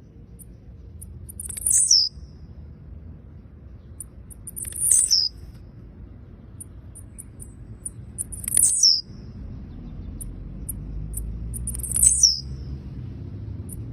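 Blue-black grassquit (tiziu) calling. Four short, very high calls, each sliding down at its end, come about every three and a half seconds, with faint high ticks between them over a low background rumble.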